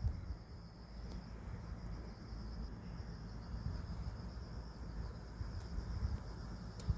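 Crickets chirring steadily in a high, fine pulsing trill, over a low rumble, with a faint click about a second in and a sharper one near the end.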